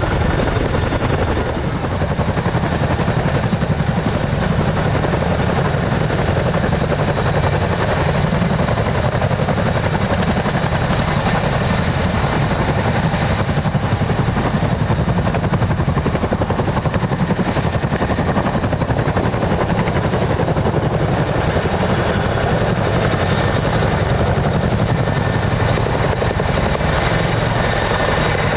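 Two Boeing CH-47 Chinook tandem-rotor helicopters hovering and climbing out while lifting slung vehicles: a steady, loud, rapid rotor beat with a thin high whine over it.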